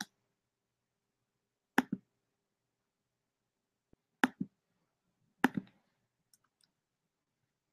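Computer mouse clicking: three pairs of quick clicks, a couple of seconds apart.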